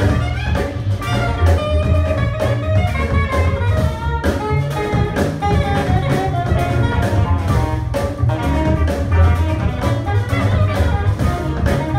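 Small jazz band playing live: saxophone over electric guitar, double bass and drum kit, with a steady beat.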